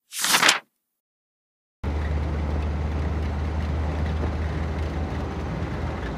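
A short, loud swish of a page-turn transition effect, then about a second of silence. After that comes the steady running noise heard inside a moving commercial minibus: a low engine drone under road noise.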